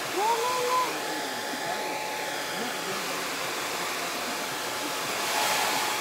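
Handheld hair dryer blowing steadily while drying a toy poodle's coat, getting a little louder a little after five seconds in. A brief pitched sliding sound comes near the start.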